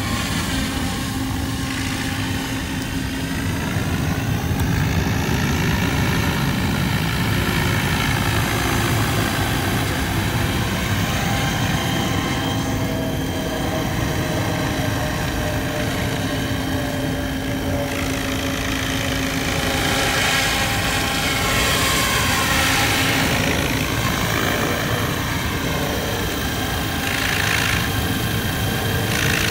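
SAB Goblin Kraken 580 electric RC helicopter in flight: steady rotor-blade chop and motor whine, the pitch of the whine dipping and rising again several times as it manoeuvres.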